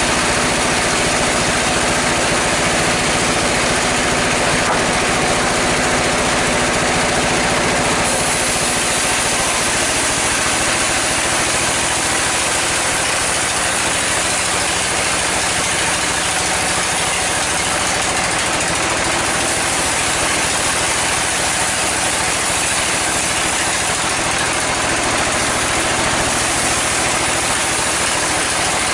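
Sawmill band saw running steadily with a loud, even machine noise and a low hum; the hum changes pitch about eight seconds in.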